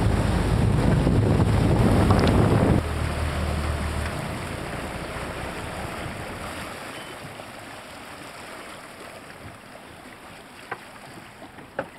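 Boat under way: engine rumble and rushing water with wind on the microphone, cutting back sharply about three seconds in, then fading to a quiet wash of wind and water. A few small clicks near the end.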